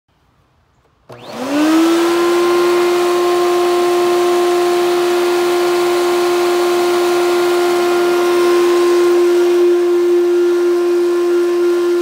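Vintage Fantom Thunder vacuum cleaner switched on about a second in: its motor spins up with a quickly rising whine, then runs steadily with a high whine over a rush of air.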